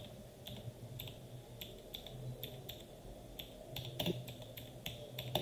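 Computer keyboard typing: faint, irregular key clicks, a few a second, as a word is typed out.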